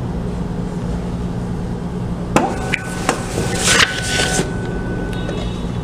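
Smartmatic VCM ballot scanner's feed mechanism trying to push a ballot back out: a sharp click, then a thin whine of about three seconds with a rattle of paper midway and a smaller click near the end, over a steady low hum. The return fails on a paper jam.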